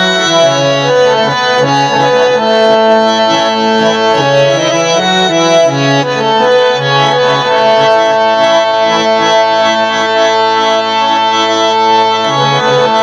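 Instrumental break in a Gojri folk song: a free-reed keyboard instrument plays a melody of long held notes that step from pitch to pitch.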